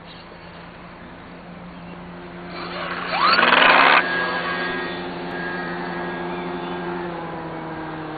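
Electric RC foam plane's motor and propeller whine, growing louder as it comes in and passing low and close about three to four seconds in with a quick drop in pitch, then carrying on at a lower, steady level.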